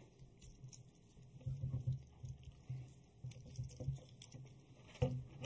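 Faint rustling and scattered light clicks of paper brochures being handed out and handled.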